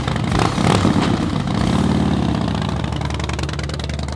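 Harley-Davidson Softail Slim's V-twin engine revving as the motorcycle pulls away, swelling in pitch and easing off about two seconds in, then running on steadily.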